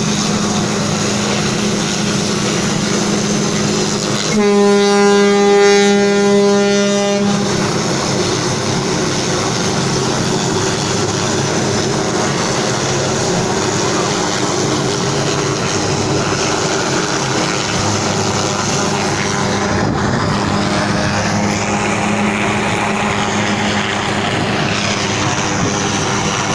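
A ship's horn sounds one long blast of about three seconds, about four seconds in, over the steady drone of a vessel's engine and a rushing noise.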